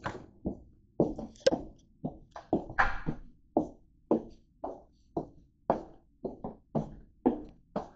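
Brisk footsteps on a hard floor, a steady run of sharp knocks about two to three a second.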